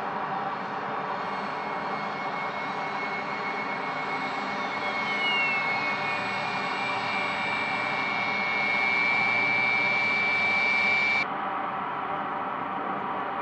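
Turbofan engines of a taxiing three-engine DC-10-based tanker running, with a steady jet noise and a high whine. About five seconds in, the whine falls in pitch, then holds steady until it cuts off abruptly near the end. Steady jet engine noise continues after the cut.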